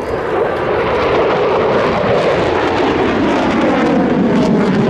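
F-16 fighter jet passing by: a loud engine roar that builds over the first second and then falls steadily in pitch as the jet goes past.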